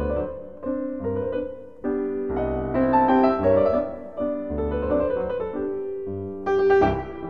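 Background piano music, notes and chords struck one after another and left to ring.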